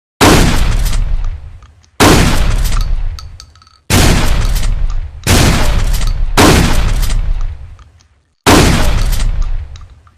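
Trench shotgun fired six times, about one to two seconds apart. Each loud shot is followed by a long decaying echo.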